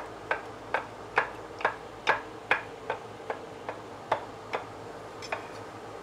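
Kitchen knife chopping soft red pepper strips on a wooden cutting board: a steady run of sharp knocks, about two and a half a second, that stops about four and a half seconds in, with one last chop shortly after.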